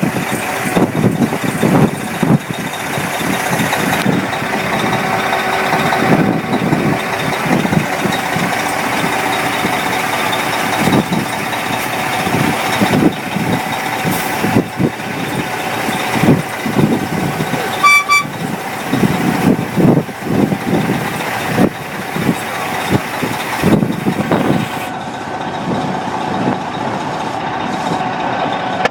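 Vehicle engine running steadily amid traffic rumble, with one short high beep about two-thirds of the way through.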